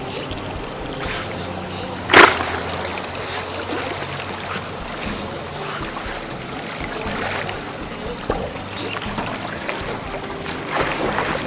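Water splashing and trickling as otters swim through the river. There is one sudden loud splash about two seconds in and a further burst of splashing near the end.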